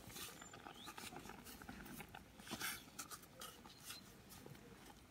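Faint, irregular scraping and rustling of a wooden spoon stirring sugar into berries in a stainless steel pot.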